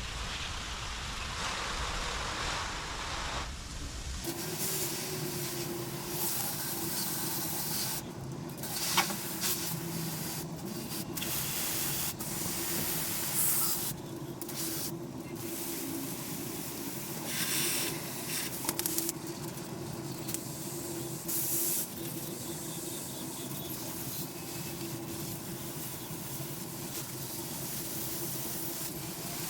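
Steady hissing, like a spray, over a steady mechanical hum, broken by several abrupt cuts.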